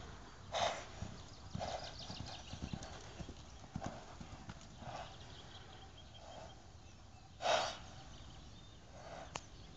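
Trakehner mare cantering loose on sand, her hoofbeats thudding dully, with a hard blowing breath about once a second in time with her strides; the loudest breath comes about seven and a half seconds in.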